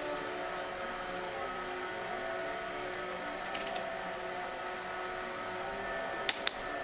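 Steady machine-like hum and hiss, with two sharp clicks about six seconds in.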